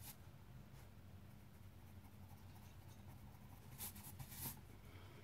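Faint scratching of a coloured pencil on paper, with a couple of short strokes about four seconds in, over a low steady hum.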